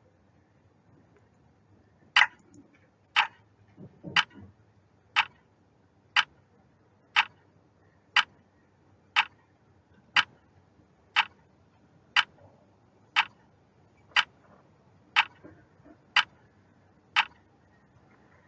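Clock ticking, one sharp tick a second, sixteen ticks in all, starting about two seconds in.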